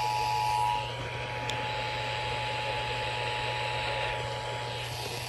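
Emergency Alert System attention signal: two steady tones sounding together, loud for about the first second, then continuing fainter over steady broadcast hiss and a low hum until the warning message begins.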